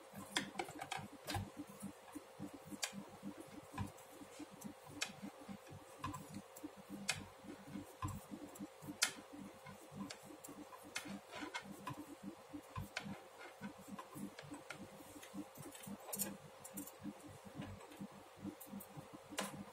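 Metal knitting needles clicking and tapping against each other as wool is knitted: faint, irregular small ticks, several a second, over a faint steady hum.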